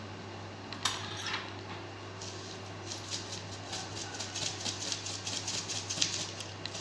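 Salt poured from a canister onto a metal spoon: a fast, grainy patter of tiny ticks from about two seconds in, after a couple of sharp clicks about a second in.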